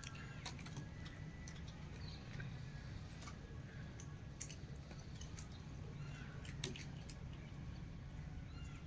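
A cat lapping water from a bowl, making faint irregular wet clicks. There are a few faint bird chirps and a steady low background rumble.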